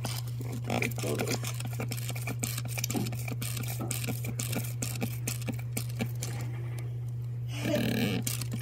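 Electric ear-irrigation unit running with a steady low hum while its stream of water flushes the ear canal to clear impacted earwax, water crackling and splashing in irregular small ticks against the splash cone and into the basin.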